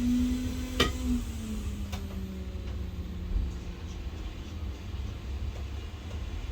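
Steady low hum of an electric blower motor at the soldering bench, with its tone sinking slowly in pitch over the first few seconds, and a single sharp click about a second in.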